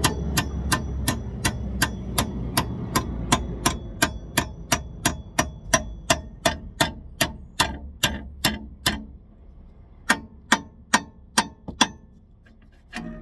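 Steady hammer blows on metal, about three ringing strikes a second, driving out the rear wheel bearing of a Scion xB. After a short pause near the end come a few more strikes. A low hum sits under the first blows.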